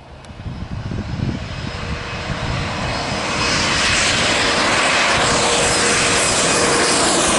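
Twin-engine jet on landing approach, its jet engines' noise and steady whine growing louder over the first three seconds or so as it nears, then holding loud as it comes overhead.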